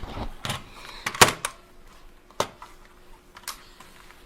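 Plastic knocks and clicks from a Redragon Kumara mechanical keyboard being handled and its fold-out tilt feet worked: a loud knock about a second in, then a few sharp single clicks about a second apart.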